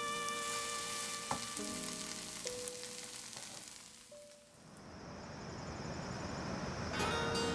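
Caramelized onions sizzling gently in a pan under soft background music, both fading out about four seconds in. A steady hiss of noise then rises toward the end.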